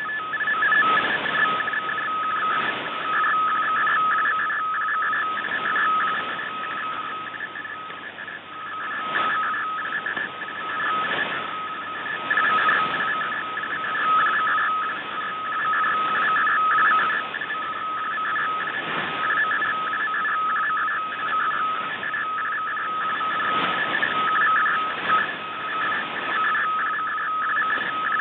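MFSK digital-mode image transmission from a shortwave broadcast, demodulated by a software-defined radio. It is heard as two steady data tones that flicker rapidly over static hiss, which swells and fades.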